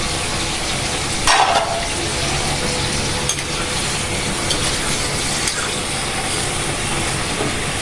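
Pork and pork liver frying in hot oil with a steady sizzle, being stirred with a few light utensil clicks. A brief louder hiss flares up about a second in.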